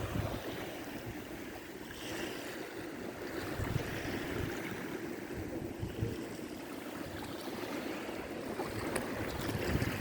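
Sea waves washing onto the shore, the hiss swelling and ebbing every couple of seconds, with wind buffeting the microphone.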